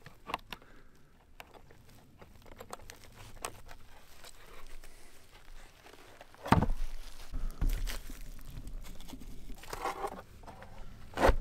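Wooden planks being handled: scattered small knocks and rustling, with two heavy wooden thuds, one about halfway through and one near the end.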